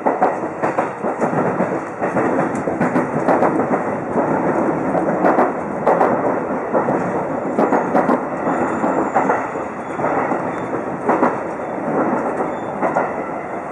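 Seibu 2000 series electric train running through pointwork, heard from the driver's cab: a continuous loud rumble with irregular sharp clacks and knocks as the wheels cross the switches and frogs.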